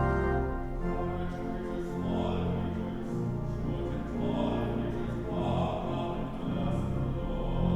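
Organ music with held chords, joined about two seconds in by a singing voice in a classical style.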